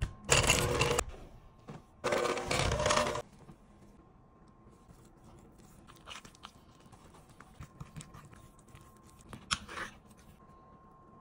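Two loud spells of rough noise, each about a second long, in the first three seconds, then a metal utensil scraping and clicking faintly against a bowl as thick frosting is stirred.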